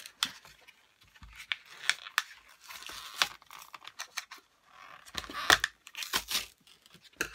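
Plastic blister pack being pulled and peeled open from its cardboard backing: crinkling plastic and tearing card in irregular crackles and snaps, loudest about five and a half seconds in.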